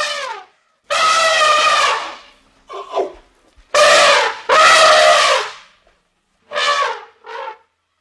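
A series of loud, drawn-out animal calls, some about a second long, with a pair near the middle and a couple of shorter ones near the end, several dropping in pitch.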